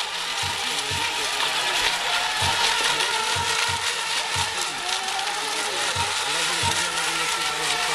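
Several electric RC racing boats running at speed, a high whine of their motors and propellers wavering up and down in pitch as they race and turn, with scattered low knocks.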